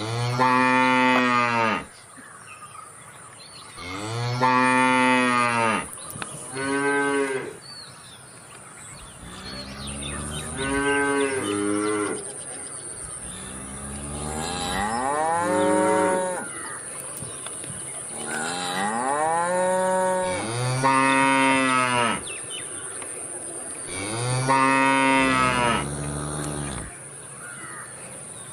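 A cow mooing repeatedly: about seven long, drawn-out moos a few seconds apart, each rising and falling in pitch.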